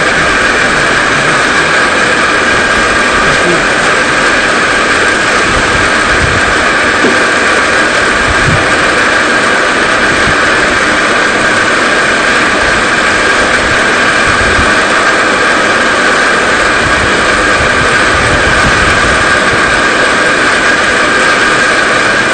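Drive motor and propeller of a model fishing boat running steadily out of the water, a constant high whine.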